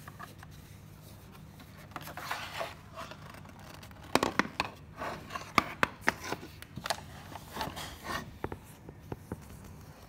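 Hard plastic robot-vacuum charging dock being handled: irregular clicks, scrapes and knocks as it is gripped and tipped over, busiest about halfway through.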